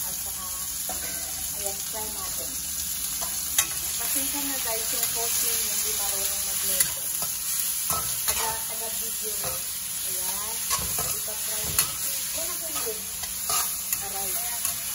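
Tomatoes, onions and garlic sizzling in hot oil in a stainless steel wok while a metal spatula stirs and scrapes them, with several sharp knocks of the spatula against the pan.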